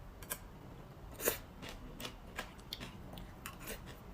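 A person chewing food close to the microphone, with a scattering of soft, short crunching clicks, one a little louder about a second in.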